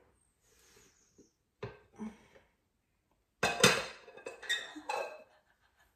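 Cooking pan and plate clattering and clinking as a freshly cooked cake is turned out of the pan onto a plate: a few light knocks, then a louder run of clatter about three and a half seconds in.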